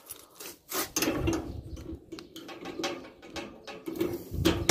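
A bunch of keys jingling and a padlock clinking and rattling against a gate's metal bolt as it is unlocked, a run of irregular clicks and knocks.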